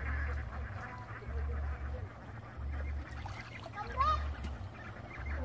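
A flock of domestic ducks quacking on the water: scattered calls, with one louder call about four seconds in.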